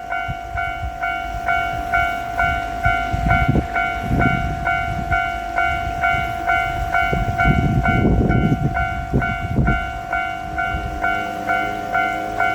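Japanese level-crossing warning bell ringing, a steady repeating ding, while a JR Shikoku 1500-series diesel railcar passes. Its wheels clack heavily over the crossing in groups about four seconds in and again around eight to ten seconds in.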